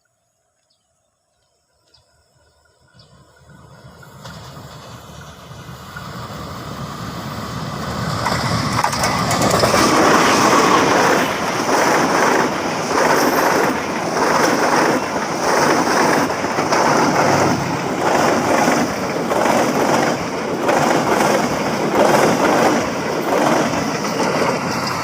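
Train approaching, growing steadily louder from about two seconds in, then running close by with the wheels clattering rhythmically over the rail joints, roughly once a second.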